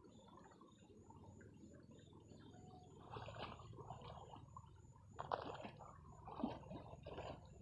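Faint sloshing of shallow, muddy paddy water as a person wades and drags a bamboo log through a flooded rice field on a rope. A few short, louder splashes come from about three seconds in.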